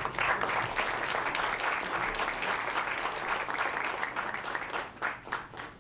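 Audience applauding, thinning to a few scattered claps near the end as it dies away.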